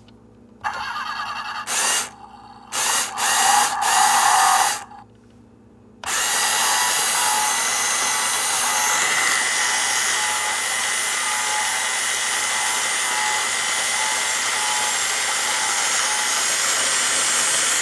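Road Rippers Piston Thumper Ford F-150 Raptor toy truck running its button-activated play feature: a few short bursts of electronic engine sound effects from its built-in speaker, then, from about six seconds in, a steady whir like a small electric motor driving the moving pistons and wheels.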